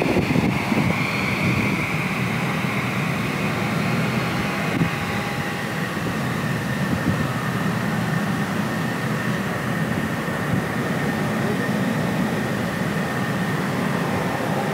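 Jet engines of taxiing airliners at low power: a steady high whine over a low rumble. The whine drops slightly in pitch in the first couple of seconds, then holds.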